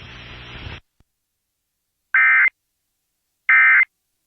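Emergency Alert System end-of-message tones: short, buzzy SAME digital data bursts, heard twice about a second and a half apart after a moment of silence. They mark the end of the severe thunderstorm warning.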